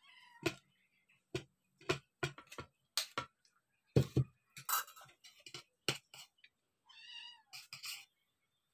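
A cat meowing twice, briefly at the start and again about seven seconds in, over scattered clinks and knocks of a spoon and plate on the table.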